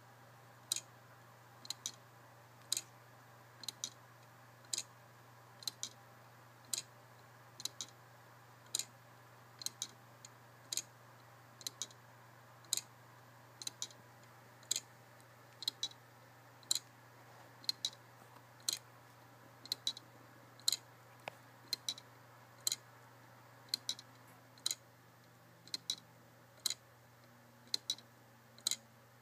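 Wooden grasshopper escapement clock ticking: sharp clicks about once a second, every other beat a quick double click.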